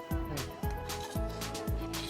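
Background music with a steady beat: a deep kick drum about twice a second, with cymbal hits and held notes over it.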